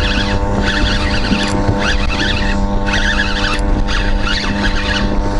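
Boat motor running with a steady, even drone, with patches of hiss coming and going over it.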